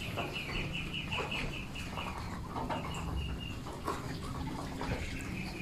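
Young Muscovy ducks, about six weeks old, peeping in quick runs of short, even, high notes. One run fills the first two seconds and a shorter one comes past the middle, with scattered light clicks and scuffs from the flock.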